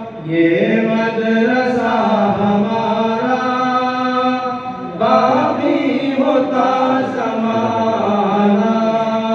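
A naat, Islamic devotional singing: one voice in long held, gliding notes over a steady drone, in two phrases, the second starting about halfway through.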